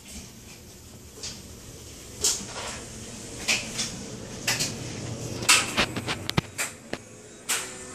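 Scattered knocks, clicks and rustling from a handheld phone being handled and carried, growing denser and louder in the second half.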